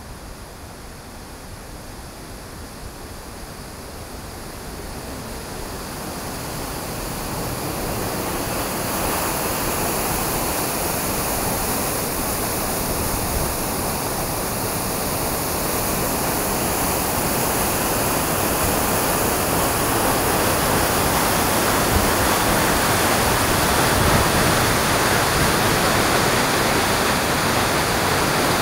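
Steady rushing water of the Edessa waterfalls, growing louder over the first several seconds as it comes nearer, then holding steady.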